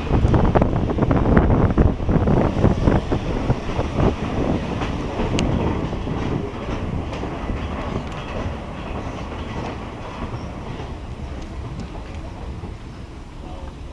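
Train wheels clattering over the rail joints as the train runs along the track. The clatter is loudest at first and grows steadily quieter.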